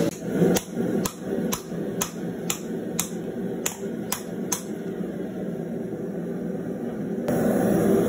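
Hand hammer striking a red-hot steel knife blank on a small Atlas anvil while drawing out the blade: about nine sharp blows, roughly two a second, stopping about four and a half seconds in.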